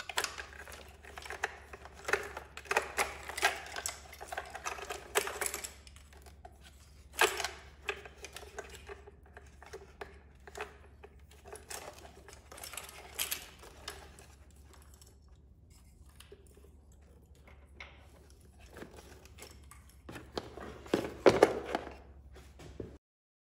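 Plastic wiring-harness connectors and braided cable being handled and pulled through a tight gap among motorcycle electrics, giving irregular clicks, rattles and rustling. A louder flurry of clicks comes near the end.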